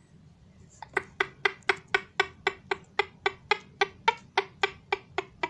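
Hand tapping on a hard object, used to send Morse code: a run of sharp, evenly spaced taps about four a second, each with a short ring, starting about a second in.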